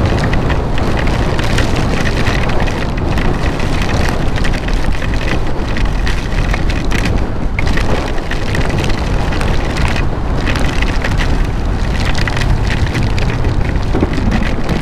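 Heavy wind buffeting a helmet-mounted microphone with driving rain, on a motorcycle riding through a storm: a loud, steady rushing noise with a heavy low rumble.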